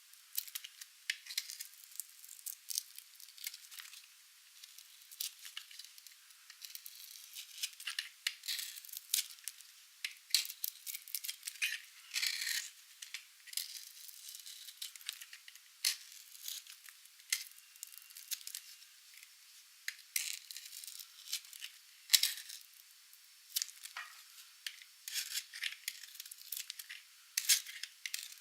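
Knife cutting through dry, painted soap: a dense, irregular run of crisp cracks and crunches as the brittle soap gives way, with no low thump beneath them.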